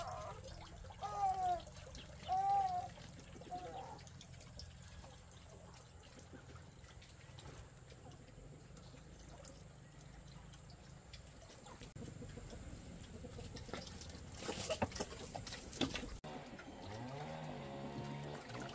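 A cat meowing four times, short rising-and-falling calls, followed by faint trickling water with a few sharp knocks or splashes.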